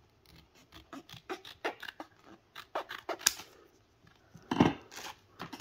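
Scissors snipping through an SD card's card-and-plastic retail package, a quick run of short cuts over the first three seconds or so. About four and a half seconds in comes a louder rustle as the package is handled.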